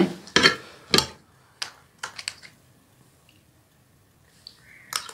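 Scattered clicks and knocks of spoons and dishes being handled to eat biryani, several in the first two seconds, then quiet apart from a faint click near the end.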